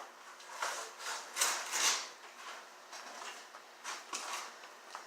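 Slime being squished and squeezed by hand: a string of irregular short squelches, the loudest a little under two seconds in.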